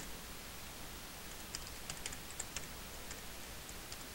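Computer keyboard typing: light, scattered keystrokes, most of them from about a second and a half in, as a short password is typed.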